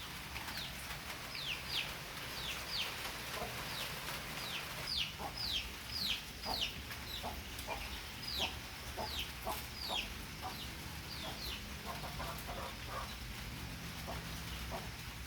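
Chickens clucking, with a run of short, high, falling calls repeating about twice a second through most of the stretch.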